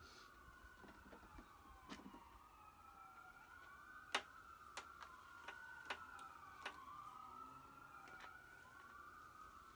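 Faint emergency-vehicle siren wailing, its pitch sliding slowly up and down, with a few sharp clicks over it, the loudest about four seconds in.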